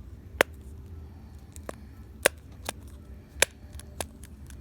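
Bubbles of a push-pop fidget toy being pressed in one at a time, giving six sharp, irregular pops, three of them loud.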